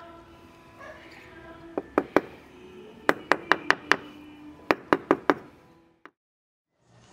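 A hammer tapping a freshly laid ceramic floor tile down into its mortar bed: three quick runs of sharp knocks, about five a second, over background music.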